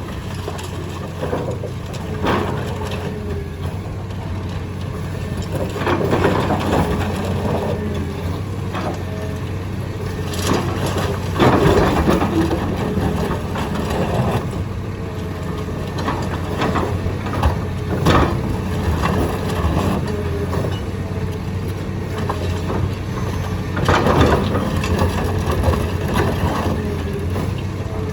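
Excavator engine running steadily while concrete cracks and crunches in irregular bursts under the machine's attachment, the loudest crunching a little under halfway through.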